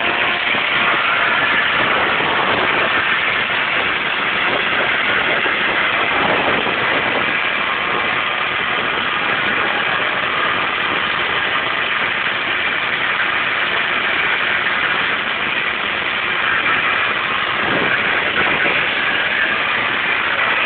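Turbocharged RB20 straight-six of a Nissan Skyline running hard and steady through a burnout, under a dense hiss of noise, its pitch swinging briefly about six seconds in and again near seventeen seconds.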